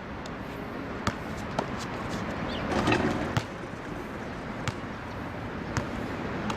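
A basketball bouncing on a hard court as a dunker sets up and runs in: a handful of sharp, irregularly spaced knocks over steady background noise.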